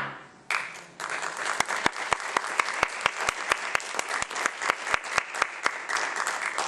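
Theatre audience applauding, starting about half a second in, with a few loud close claps standing out above the rest.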